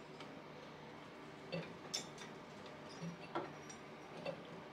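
About five faint clicks and light knocks of hands working the slackened alternator drive belt off the pulleys of an A-series engine, over a low steady hum.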